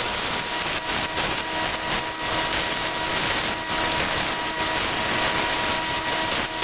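Electric grinder running, a steady motor hum under a continuous hiss as the tempered steel chisel is cleaned up against it.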